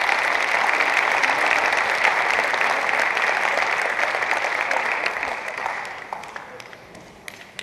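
Audience applauding, which fades out about six seconds in.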